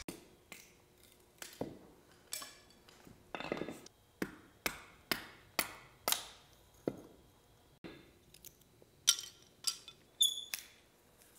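A hatchet splitting thin kindling sticks off a block of wood, tapped through with a small hammer: a run of sharp, irregular wooden knocks about one or two a second, with a couple of metallic clinks that ring briefly near the end.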